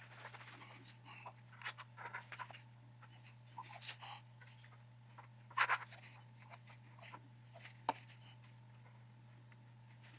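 Faint handling sounds of small 3D-printed plastic parts and a super glue bottle with a brush cap being worked by hand: scattered light clicks, taps and rustles, the loudest a short cluster a little past the middle and a single sharp click soon after. A steady low hum runs under them.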